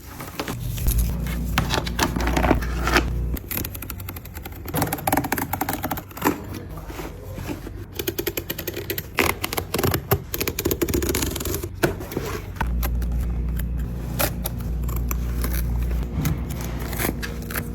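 Hand work on leather: scissor snips, scraping and a quick run of short clicks and taps.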